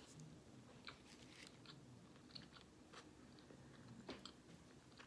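Faint chewing of a mouthful of burger: a few scattered soft clicks over otherwise near-silent room tone. A little after four seconds in, a short sharper crackle as the foil wrapper around the burger is handled.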